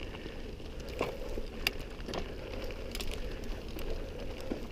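Mountain bike rolling down a dirt singletrack: tyres crunching over dirt and small stones, with scattered clicks and rattles from the bike over a steady low rumble.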